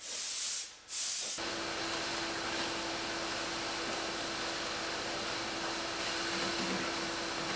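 Compressed-air blow gun hissing in short blasts over bare sheet-metal cab floor, cutting out for a moment just under a second in. At about a second and a half, a steady, continuous rush of air with a constant low hum takes over and runs on.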